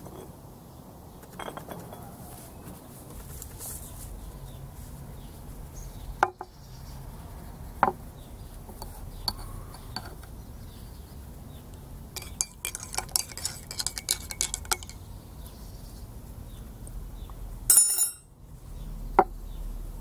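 A metal spoon clinking against a ceramic mug. There are a few single clinks, then a quick run of clinks for about three seconds as the spoon stirs the mug, and a louder knock and a last clink near the end.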